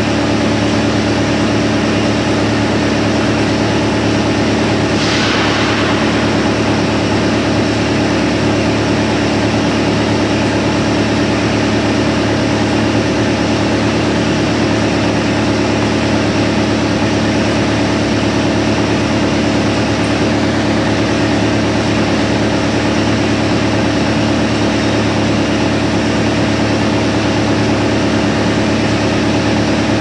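Industrial drum wood chipper, driven by a 110 kW electric motor, running steadily with no wood being fed: a constant hum made of several steady tones over a hiss. A short falling hiss comes about five seconds in.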